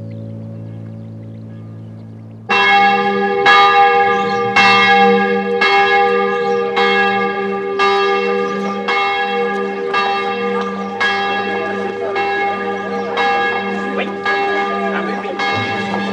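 Church bells ringing out for a wedding, struck about once a second with a long ring between strokes. They come in suddenly about two and a half seconds in, over the fading end of a soft, sustained low chord of background music.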